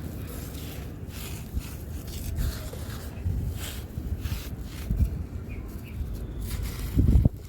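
A dusty yellow block crunching and crumbling as it is broken apart by hand: irregular crisp crunches with soft low thuds of falling chunks, and a louder crunch about seven seconds in.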